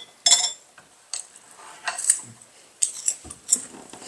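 Forks clinking and scraping against plates during a meal: a run of separate short, light clinks.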